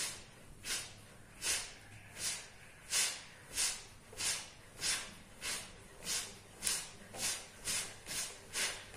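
A short, sharp hiss with each of a rapid series of front punches, about fifteen in all, coming slightly faster toward the end.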